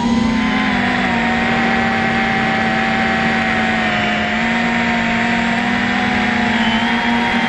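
FPV quadcopter motors humming at a steady pitch, with a few held tones that sag and rise slightly as the throttle changes.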